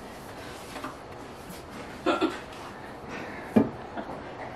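Low room noise with a brief clatter about two seconds in and a single sharp knock about three and a half seconds in, as of objects being handled and set down.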